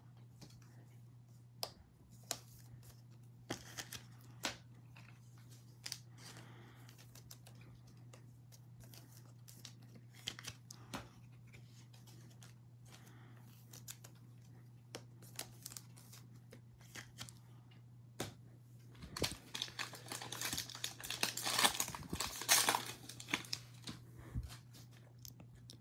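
Foil wrapper of a 2021 Mosaic football card pack being torn open and crinkled by hand, a dense crackling burst starting about 19 seconds in and lasting some four seconds. Before it, only scattered faint taps and clicks over a steady low hum.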